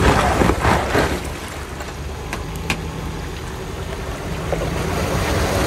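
An off-road vehicle's engine running steadily under a rushing noise of wind or tyres, with two sharp clicks about halfway through.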